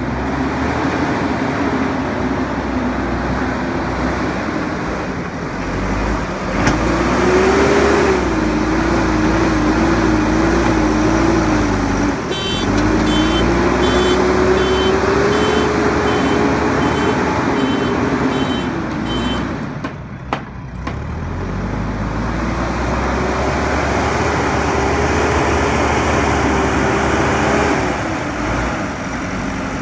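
JCB 3DX Super backhoe loader's diesel engine working under load, its pitch rising, wavering and falling back as the machine works, with brief drops in level twice. About halfway through, a reversing alarm beeps about twice a second for several seconds, and there is one sharp knock about two-thirds of the way in.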